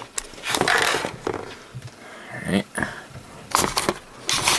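Handling noise from a Sony Handycam camcorder as a microSD card is pushed into its slot and the camera is moved: scattered clicks and brief rubbing scrapes.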